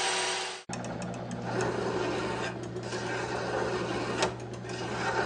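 An angle grinder running against a threaded rod, cut off abruptly about half a second in. Then a lathe motor hums steadily while a hand file rasps at the turning threaded rod to put a point on it, with a few sharp clicks.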